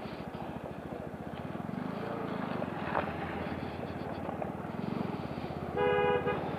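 Motorcycle engine running steadily under way, with even firing pulses. Near the end a vehicle horn beeps once, about half a second long.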